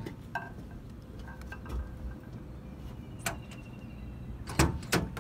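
Low steady rumble of a running vehicle or machine heard from its cab, with a few sharp clicks and knocks over it, the loudest two close together near the end.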